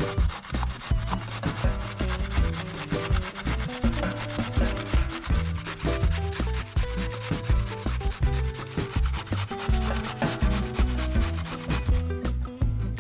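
Peeled zucchini rubbed hard against the coarse side of a stainless steel box grater: a quick, steady run of rasping scrape strokes, easing off near the end.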